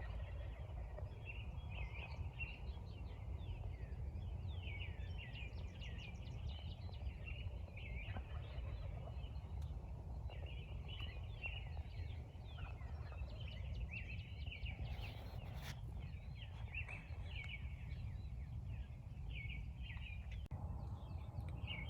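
Wild turkeys gobbling again and again, the rattling calls overlapping throughout, over a steady low rumble.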